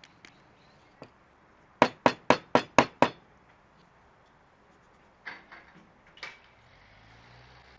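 A quick run of six sharp taps, about five a second, then three lighter taps a couple of seconds later.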